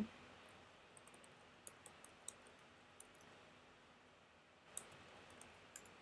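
Faint typing on a computer keyboard: scattered key clicks in two short spells, about a second in and again near the end, as a short terminal command is typed.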